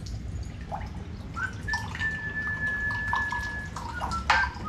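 Liquid poured from a bottle into a mug, splashing and trickling, with a thin ringing tone from the filling mug. A sharp knock comes near the end.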